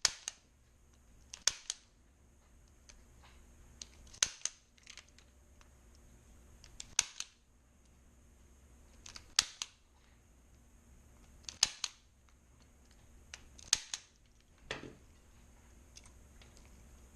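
Spring-loaded impact punch-down tool firing, a sharp snap every two to three seconds as it seats and trims each wire in a Cat 5 jack. There is a duller knock near the end.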